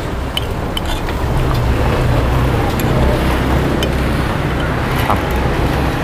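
Steady low rumble of a vehicle engine running nearby, growing louder about a second in, with a few light clinks of a spoon against a plate.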